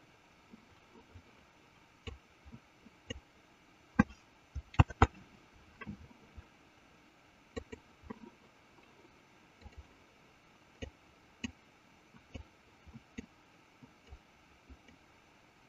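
Irregular clicks of a computer mouse on a quiet desk, a dozen or more spaced out at uneven intervals, with three louder clicks close together about four to five seconds in.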